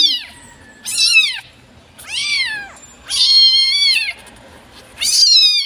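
Very young calico kitten mewing repeatedly in distress while held away from its mother: five loud, high cries about a second apart, each rising then falling in pitch, the one about three seconds in held longer.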